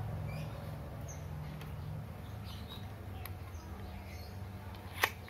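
A single sharp metallic click about five seconds in from the action of a 6 mm smoothbore bolt-action rifle being handled. Faint bird chirps and a low steady hum sit underneath.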